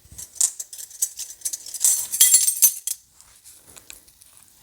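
Measuring spoon clinking and scraping against a seasoning container and bowl as a quarter teaspoon of dry seasoning is measured out. It is a quick run of light clinks and rustles that dies away about three seconds in, leaving only a few faint ticks.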